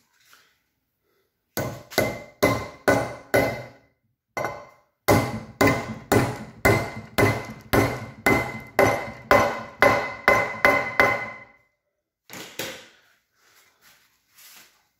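A hammer tapping the nut on top of a steel wedge anchor bolt, driving it down into a hole drilled in concrete. There is a run of five metal-on-metal strikes, a short pause, then a steady run of about fifteen at two to three a second, each with a short metallic ring.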